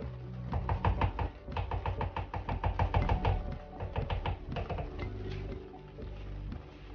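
Wooden spoon knocking and scraping against the pan as thick, homemade milk caramel is stirred briskly, several quick taps a second. The taps thin out about five seconds in.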